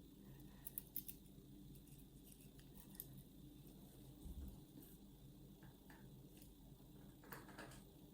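Faint, small metallic clicks and taps of tools working pins and springs out of the chambers of a disassembled euro cylinder lock: a quick cluster of clicks about a second in, another click around three seconds, and a short scrape near the end.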